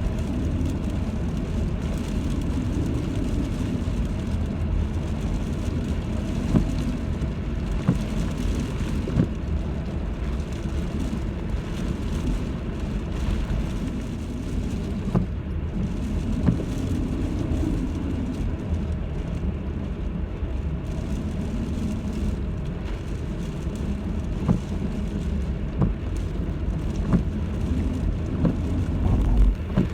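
Typhoon wind and rain: a steady heavy low rumble of buffeting wind, with scattered sharp taps throughout.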